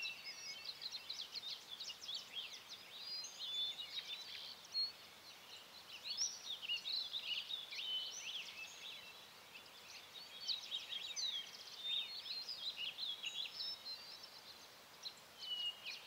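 Many small birds chirping and singing together, a continuous stream of quick, high, overlapping notes over faint outdoor background noise.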